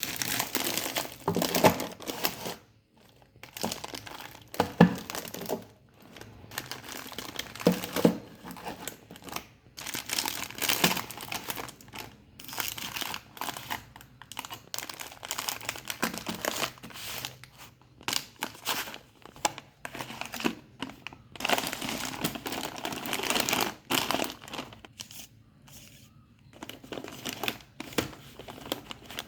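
Packaging crinkling and rustling as purchased items are unpacked and handled, in irregular bursts with short pauses. A few sharper thumps are heard as things are set down.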